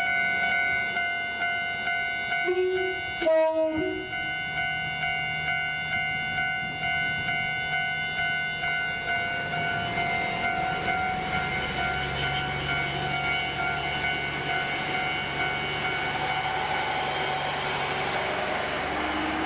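Level-crossing alarm bell ringing with a steady, regular pulse while a diesel railcar sounds a short two-part horn about three seconds in. From about halfway through, the railcar's diesel engine rumble grows louder as it approaches.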